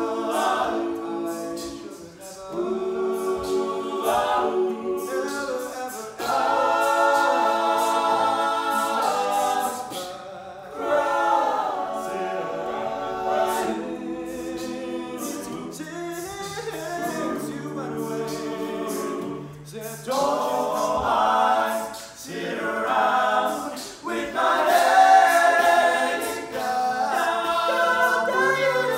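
All-male a cappella group singing a slow soul ballad: a lead voice over sustained backing harmonies, with a bass voice stepping beneath.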